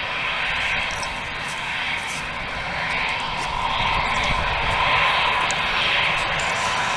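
Airbus A320 jet engines running at taxi power: a steady rush with a held whine, growing a little louder about four seconds in as the airliner turns toward the listener.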